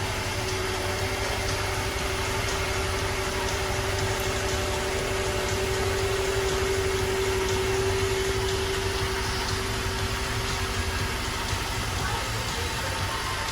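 2009 Acura TSX's 2.4-litre four-cylinder engine idling steadily just after starting, with a steady whine that fades out about eleven seconds in. The engine still has its cylinder 4 misfire, which new fuel injectors did not cure and which is traced to a failing ignition coil pack.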